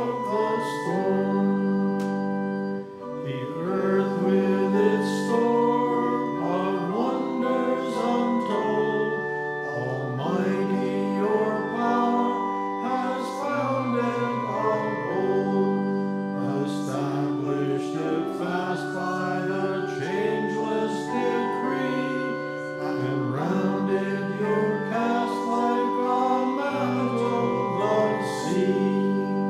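Church congregation singing a hymn with organ accompaniment, the organ holding sustained chords under the voices.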